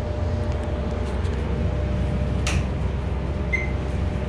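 Dover traction elevator car travelling, a steady low rumble with a faint hum inside the cab. A short high beep sounds about three and a half seconds in, and a brief click about two and a half seconds in.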